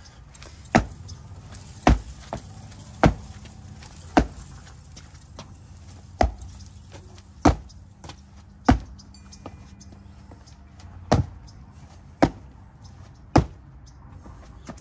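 A person jumping up and down on a freshly laid paver, landing in about ten heavy thuds roughly a second apart with a couple of short pauses. The jumping compacts the sand bed beneath to bring down a paver that sits too high.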